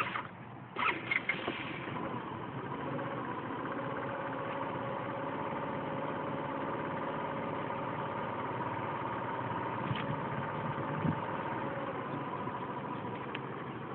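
A few sharp clatters about a second in, then a steady motor hum with two held tones, like an engine idling nearby.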